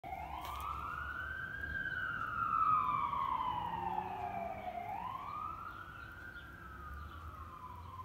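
Emergency siren wailing, its pitch rising and falling slowly twice, growing fainter in the last few seconds.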